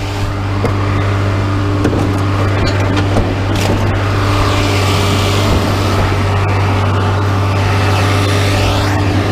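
A large engine running with a steady low drone, with a few sharp knocks and clanks as scrap is pulled off a truck bed.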